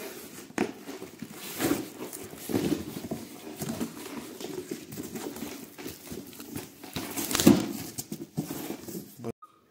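Shrink-wrapped books being handled and lifted out of a cardboard box: plastic wrap crinkling and rustling, with several louder knocks and scrapes, the loudest about seven and a half seconds in. The sound cuts off suddenly near the end.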